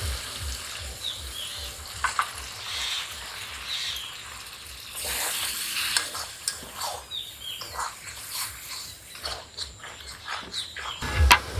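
Metal spatula scraping and stirring a thick, wet spice paste in a metal wok, with sizzling from the pan as the masala is fried down with a splash of water. A louder hiss of sizzling comes about five seconds in.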